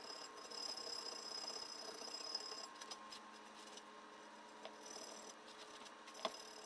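Faint metal-on-metal rubbing as parts at the end of a crankshaft are worked by hand, lasting about three seconds, then quieter handling with one sharp click near the end.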